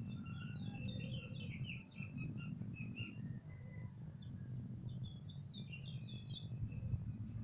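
Birds chirping in quick runs of short high notes, over a steady low background rumble.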